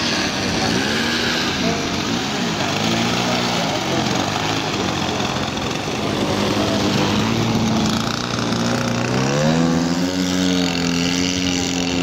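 Radio-controlled scale model aircraft engines. In the first half, a model in flight runs with its pitch repeatedly rising and falling. Then a model biplane's engine runs steadily on the ground and throttles up about nine seconds in for its takeoff run.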